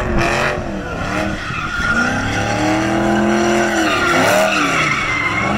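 A car drifting: its engine revs rise and fall repeatedly while the tyres squeal and skid on the pavement.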